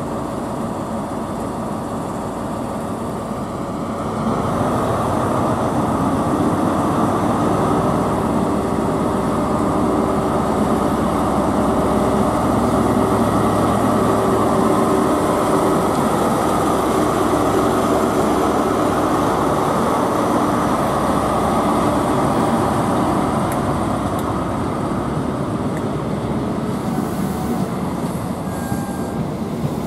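ScotRail Class 43 HST power car's MTU diesel engine working hard as the train pulls away from the platform, growing louder about four seconds in with a steady engine note. Later the coaches roll past with a rumble of wheels on the track.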